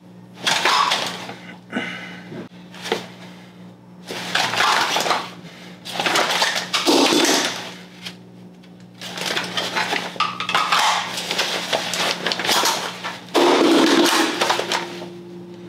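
Handling noise from dry-fire weapon drills: the rifle, magazines and nylon chest-rig gear rustling and clacking in about seven separate bursts as a magazine is pulled and swapped into an AR-15-style rifle and the guns are moved between positions.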